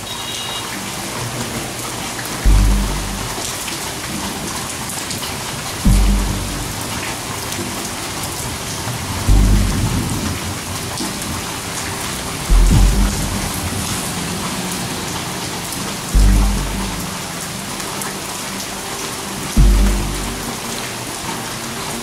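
Steady rain hiss under a deep bass note that strikes about every three and a half seconds and fades over about a second, an evenly repeating rain-and-music soundtrack.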